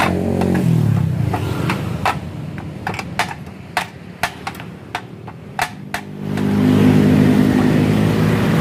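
Hand hammer striking metal on a cast iron cut-off saw base, about sixteen sharp, ringing, irregular blows over some five seconds. A nearby engine hum winds down in the first second and comes back loud about six seconds in.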